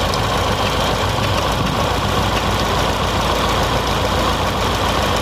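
Fiat Palio's GM four-cylinder engine idling steadily while misfiring on the second cylinder, whose fuel injector has burnt out and is not firing.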